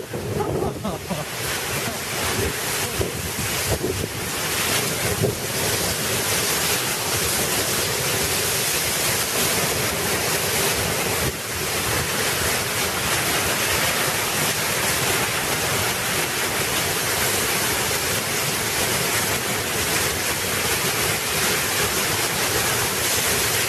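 Torrential rain pouring down in a violent storm, with wind gusting over the microphone: a dense, steady hiss that builds over the first few seconds and then holds.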